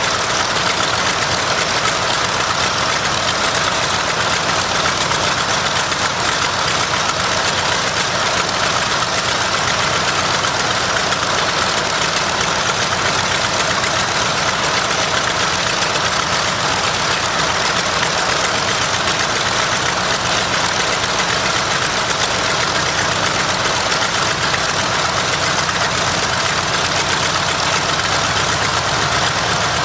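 Nakajima Sakae 14-cylinder air-cooled radial engine of a Mitsubishi A6M Zero fighter, running steadily and loudly during a ground run.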